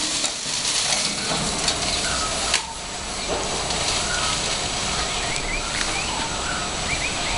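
Steady outdoor background noise, with a few short, faint chirps and a single sharp click about two and a half seconds in.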